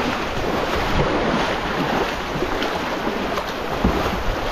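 Whitewater river rapids rushing as a steady, even noise, with wind on the microphone.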